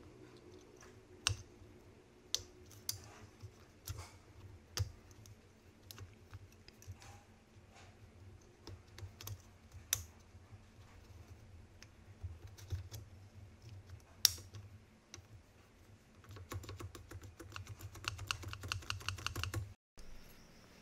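Light, sharp clicks and taps of a metal stabilizer wire being fitted into the clips of an IBM Model F keyboard's plastic key-housing plate. The clicks come singly and scattered at first, then in a fast run near the end that stops abruptly, over a faint steady hum.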